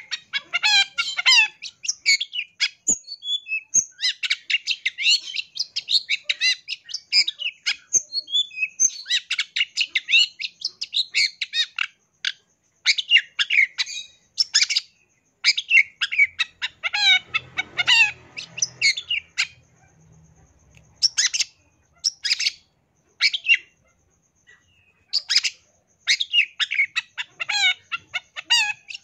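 Long-tailed shrike singing a fast, varied song of quick chattering phrases, trills and sharp notes, full of imitated calls of other birds, broken by short pauses.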